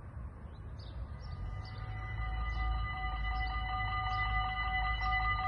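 Dutch level-crossing warning bells (EBA electronic bells) start ringing about a second in and grow louder, at about two and a half strikes a second. They signal that the crossing has been activated and the barriers are about to lower. A steady low rumble runs underneath.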